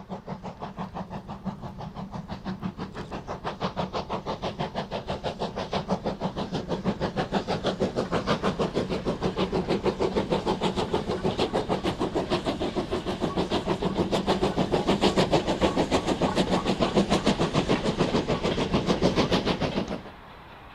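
Steam locomotive working under power, its exhaust beating in rapid regular chuffs about four to five a second and growing louder as it approaches; the sound cuts off suddenly near the end.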